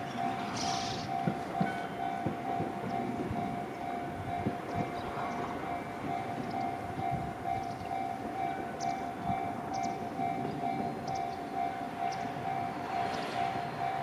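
Japanese railway level-crossing warning bell ringing with an evenly repeating electronic tone, which signals an approaching train. A low, uneven rumble sits underneath.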